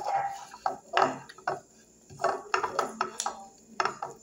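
Handling of a glass dish and a plastic plate cover at a table: a string of short knocks and clatters, some close together, with rustling as food is picked from the dish.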